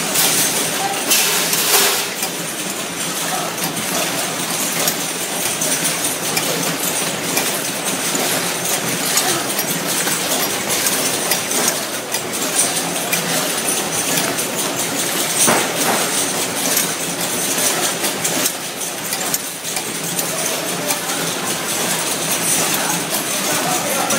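Automatic cartoning machine running at speed: a steady mechanical clatter of many quick clicks and knocks from its conveyor and carton-handling mechanism.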